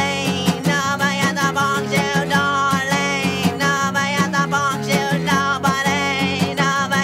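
Music: a rock band playing a guitar-led passage of a song over a steady beat.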